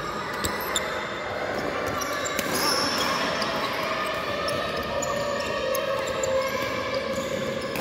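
Doubles badminton rally in a reverberant indoor hall: sharp racket strikes on the shuttlecock, the loudest two close together about half a second in, with players' shoes on the court and a steady echoing murmur of the hall.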